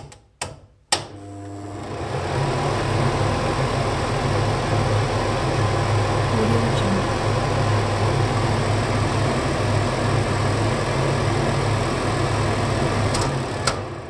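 Kitchen range hood extractor fan: a few switch clicks, then the fan spins up over a couple of seconds and runs steadily with a low hum under the rush of air. Two more clicks near the end, and the fan begins to wind down.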